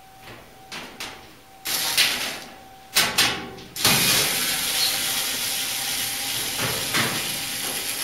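Cordless drill-driver running in a few short bursts, then steadily for about four seconds from near the middle, backing screws out of a clothes dryer's sheet-metal back panel.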